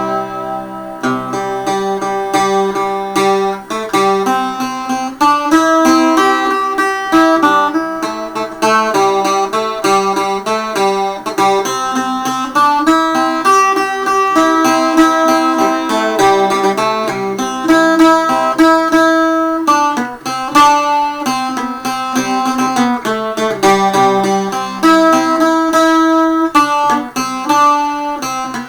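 Thuringian waldzither, a steel-strung German cittern tuned to open C, being played: a continuous run of plucked notes and chords up and down the fingerboard, with long sustain.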